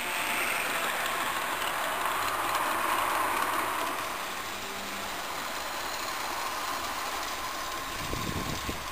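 Electric motors and gears of a garden-scale model Chessie System diesel locomotive whirring, its wheels rolling on the track as it runs past, loudest about three seconds in and then easing off. A low rumble comes in near the end.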